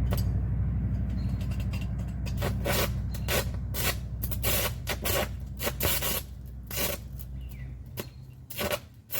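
Aluminum stick-welding arc sputtering and crackling irregularly in uneven pops over a low steady welder hum; the hum fades out about eight seconds in. The erratic arc is what the welder then puts down to the wrong polarity.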